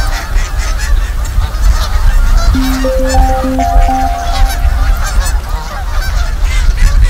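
A large flock of waterfowl calling nearby, a dense chorus of goose-like honking, over a heavy rumble of wind on the microphone. A few soft music notes play at the start and again from about 2.5 to 4.5 s.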